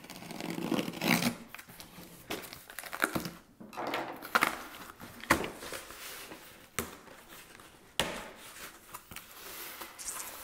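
Cardboard shipping box being opened by hand: packing tape cut and torn and the flaps pulled open, with crinkling, scraping and several sharp knocks of cardboard.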